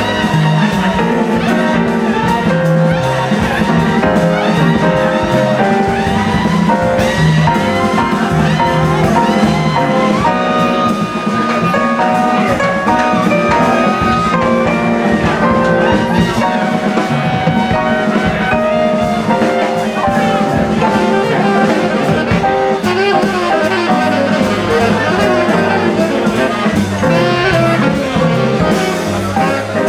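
Live jazz band playing: a saxophone leads over piano, walking double bass and drums.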